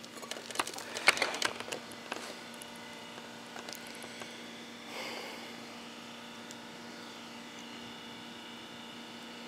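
Light clinks and knocks of an enamel camp mug and metal kettle being handled on a steel grill grate, bunched in the first two seconds, then quiet handling. A faint steady low hum runs underneath.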